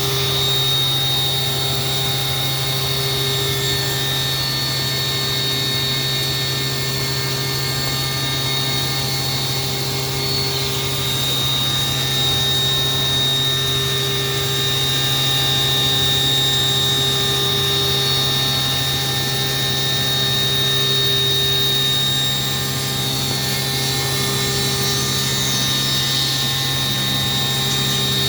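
GR 712 CNC machine milling a hole by ramping: the spindle and cutter run steadily, a low hum under a high whine, with the pitch shifting a little partway through.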